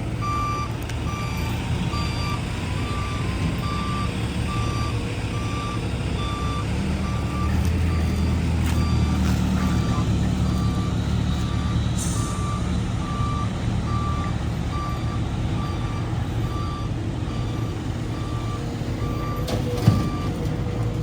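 Dump truck reversing to tip its load: a reversing beeper sounds over and over above the running diesel engine, which revs up for a couple of seconds about halfway through. A single sharp knock comes near the end.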